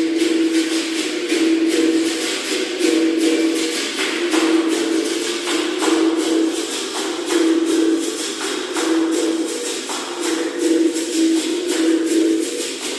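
Berimbau music: the steel wire of the bow sounds a sustained note that swells in a repeating rhythm, with the steady rattle of a caxixi shaker on the strokes.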